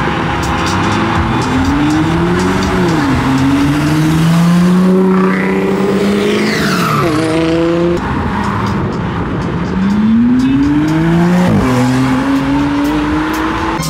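Loud straight-piped supercar engine accelerating hard at full throttle, its pitch climbing and then dropping at each upshift. A second full-throttle pull starts a little past halfway and climbs to another shift.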